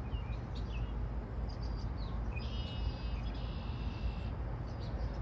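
Small birds chirping, with one buzzy trilled song lasting about two seconds in the middle, over a steady low outdoor rumble.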